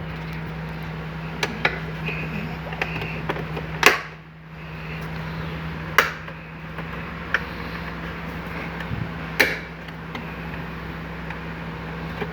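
Plastic trim pieces of a Fiat Cronos driver's door being pressed into their snap-in clips: a few sharp snaps and knocks, the loudest about four, six and nine seconds in, over a steady low hum.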